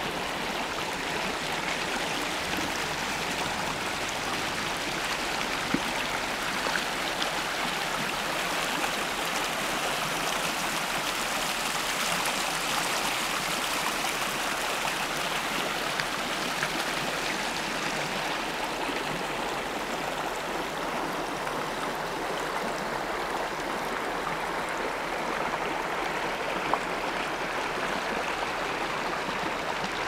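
Small creek babbling: a steady, even rush of running water.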